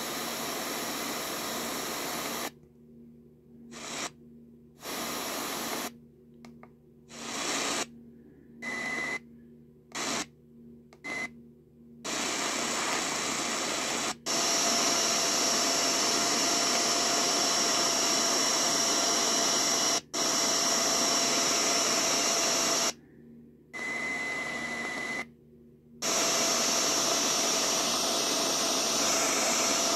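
Tecsun PL-880 receiver's speaker giving out radio static between stations while it is tuned: short bursts of hiss cut by silences as it mutes at each change, then steadier medium-wave static with a high thin whine and a lower steady tone running through it. Two short beeps sound, one about nine seconds in and one near the end.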